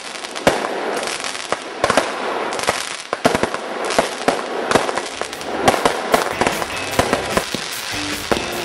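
Fireworks going off: a dense run of sharp bangs over continuous crackling, several reports a second. Guitar rock music comes in near the end.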